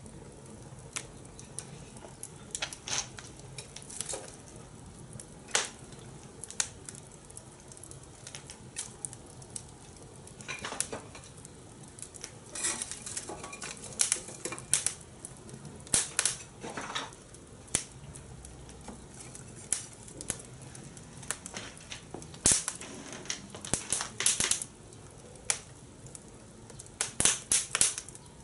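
A cooking fire crackling and popping under grilling corn: irregular sharp snaps, some in quick clusters around the middle and near the end.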